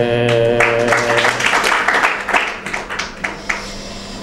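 A man's voice holds a long chanted note at the close of a recited Somali gabay poem, ending about a second in, as an audience breaks into brief clapping that thins out and fades within a few seconds.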